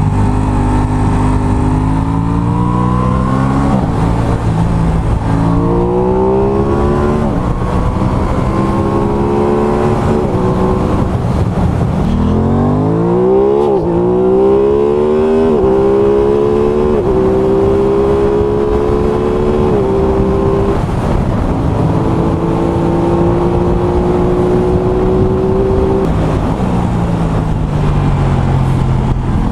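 Aprilia Tuono 660's parallel-twin engine pulling hard through the gears, with quickshifter upshifts. The revs climb and drop abruptly at each change, settle into a steady cruise, then fall away as the throttle closes near the end. Steady wind and road rush runs underneath.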